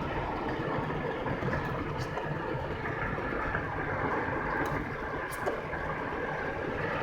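Steady road and engine noise inside a moving car's cabin, with a few faint ticks.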